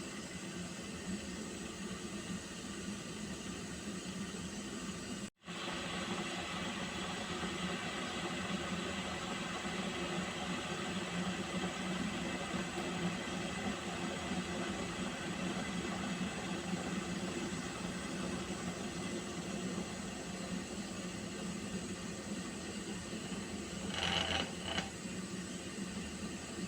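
Water heating in a pot: a steady hiss over a low hum, with a momentary dropout about five seconds in and two short louder bursts near the end.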